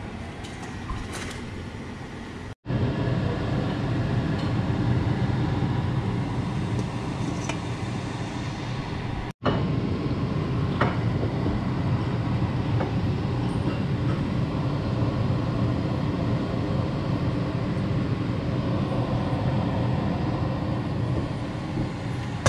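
Large stockpot of crab boil at a rolling boil: a steady, low, noisy rumble, with a couple of light clinks.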